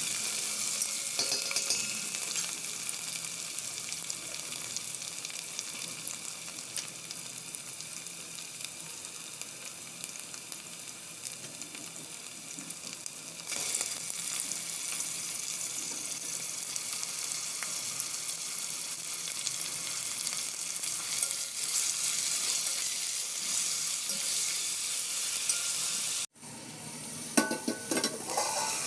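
Food sizzling steadily in hot oil in a pan. Near the end the sound cuts off abruptly, then resumes with a spoon stirring and scraping against the pan in irregular clinks.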